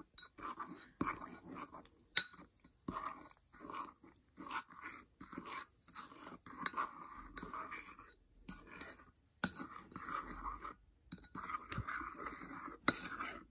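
Metal spoon stirring a gritty paste of baking soda and water in a ceramic bowl: repeated short scraping strokes, with a sharp clink of the spoon against the bowl about two seconds in.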